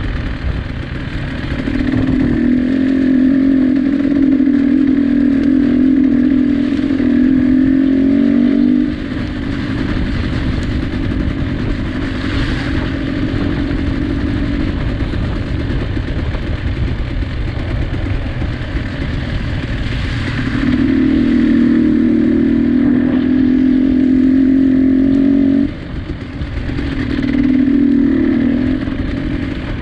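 Motor vehicle engine held at high, steady revs for several seconds, then dropping back abruptly. It settles to a lower running sound, and the pattern repeats twice more, the last time briefly.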